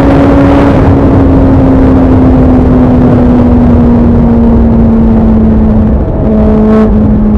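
Suzuki Bandit 650's inline-four engine through an aftermarket MIVV exhaust, running on the move with its revs slowly falling. About six seconds in the sound briefly dips, then holds steady again.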